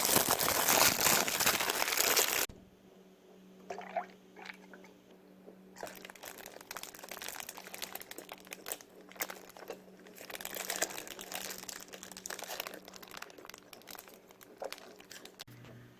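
Crinkling and crunching of packaging being handled while getting food, loud at first, then scattered clicks and more crinkling bursts over a faint steady low hum.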